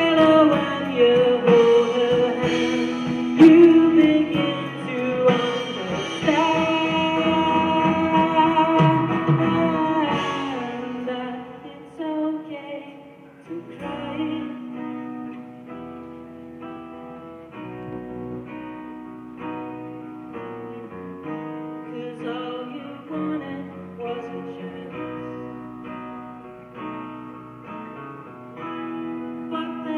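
A live band playing a song on an outdoor stage, heard from the crowd: a louder passage of long held notes over guitar for about the first ten seconds, then a quieter, wordless stretch of repeated picked acoustic-guitar notes.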